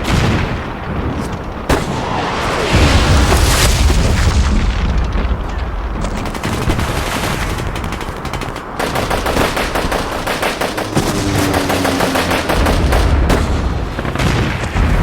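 Layered battle-scene sound effects: heavy explosion booms with a deep rumble, then rapid automatic gunfire in the second half.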